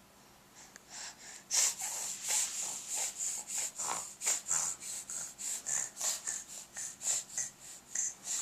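A rapid series of short, breathy snorts and puffs, about two to three a second, made as silly noises. They begin about a second and a half in and stop just before the end.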